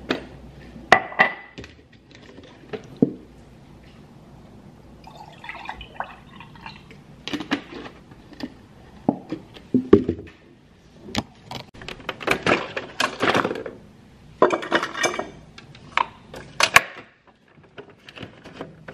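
Orange juice poured from a bottle into a glass about five seconds in, among scattered knocks and clinks of the bottle and glass on a hard countertop. A quicker run of clinks and knocks of kitchen glassware follows near the end.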